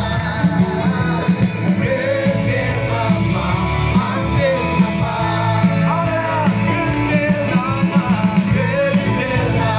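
Live worship band playing through a PA: amplified singers over electric and acoustic guitars, with a steady low bass line.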